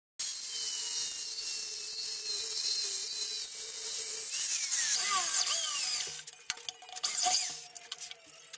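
Angle grinder cutting steel in a vise: a steady high hiss with a wavering whine from the disc. After about six seconds it gives way to short, broken bursts from a small high-speed rotary tool on a small steel part.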